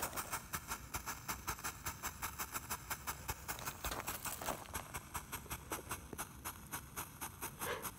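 Consumer firework fountain burning with a fast, even crackle, about six sharp pops a second.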